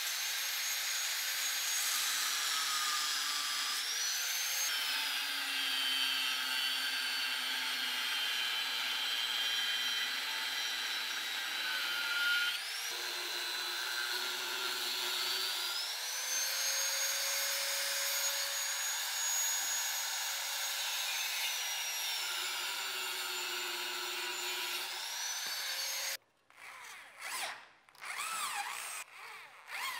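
Angle grinder with a cut-off disc cutting steel, its high whine sagging in pitch and recovering several times as the disc bites and is eased off. About 26 s in the grinder stops and an electric drill boring holes in the steel blade takes over in short bursts.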